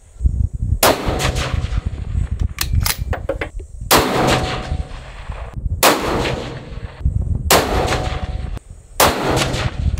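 Five shots from a Black Creek Labs MRX Bison bolt-action rifle in 5.56, each a sharp crack with a ringing tail, spaced one to three seconds apart, with fainter clicks between them.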